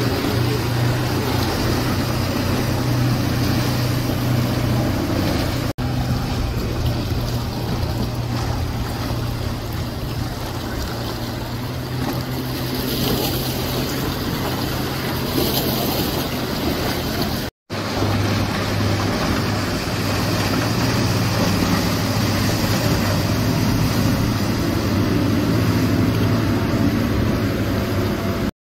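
Motorboat engines running at speed past the jetty, a steady drone, with rushing water from the hulls and their wakes. The sound cuts out briefly twice where clips are joined.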